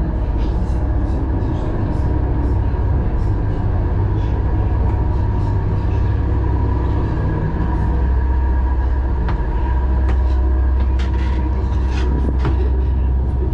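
Steady low drone of a river cruise boat's diesel engine heard below deck, with a faint steady whine above it. Occasional footsteps and short knocks, more of them near the end.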